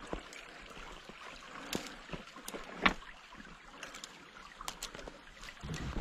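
Blizzard wind and snow on the microphone: a steady rough hiss with scattered light ticks and taps, the sharpest about three seconds in.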